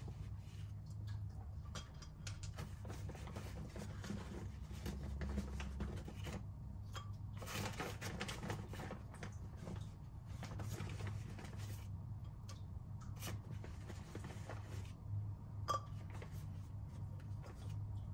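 Small pieces of orchid bark rustling and clicking faintly as they are picked up and dropped into the pot, scattered through the whole stretch over a low, steady hum.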